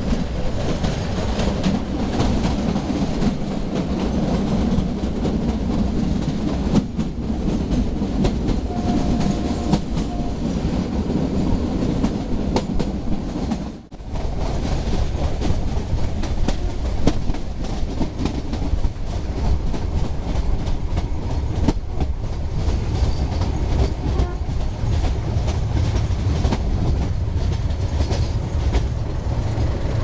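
Metre-gauge passenger train running, heard from inside a coach: a steady rumble with wheels clattering over the rail joints. The sound drops out for a moment about halfway through, then the rumble and clatter go on.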